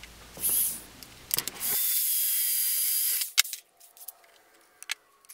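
Cordless drill running for about a second and a half while drilling a hole into a boss on a metal shaper column, with a faint motor whine under the cutting noise. A few short clicks and knocks of handling come before and after it.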